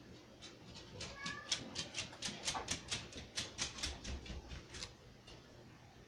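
A run of quick, light clicks, about four to five a second, as hands work tangled thread off a plastic sewing-machine bobbin, with a short squeak about a second in.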